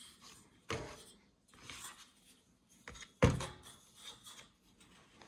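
A few knocks and rubbing sounds from an Antminer hash board being picked up and handled on a table, with the loudest knock about three seconds in.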